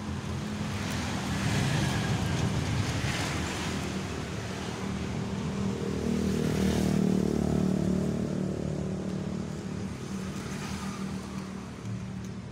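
A motor vehicle engine running, growing louder about halfway through and fading toward the end, like traffic passing on a street.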